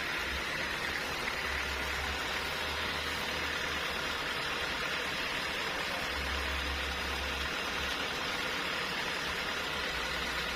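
Sawmill machinery running steadily, a constant mechanical noise with a low hum that comes and goes.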